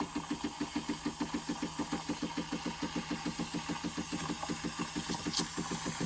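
Decent espresso machine's steam wand steaming a small jug of milk: a steady hiss over a rapid, even chugging pulse, about six or seven beats a second. A brief sharp spurt of hiss comes about five seconds in.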